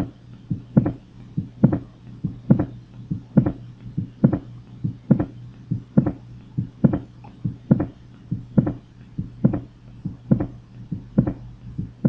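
Recorded heart sounds of a pericardial knock: a steady heartbeat at about seventy beats a minute, each beat a cluster of sharp knocking sounds, including an extra early-diastolic knock after the second heart sound. This is a sign of constrictive pericarditis, where the stiffened pericardium stops the ventricle filling abruptly. A steady low hum runs under the beats.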